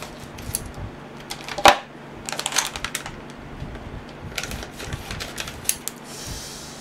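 Scissors cutting open a foil antistatic bag holding a new hard disk drive, then the bag pulled apart: irregular crinkling and snipping, with one sharp click about a second and a half in and busier crackling later.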